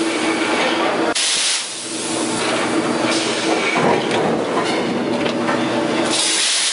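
Automated hot forging press line for bevel gears running: a steady machine hum, with a sharp hiss about a second in and again near the end. The press ram strokes down on the glowing billets near the middle.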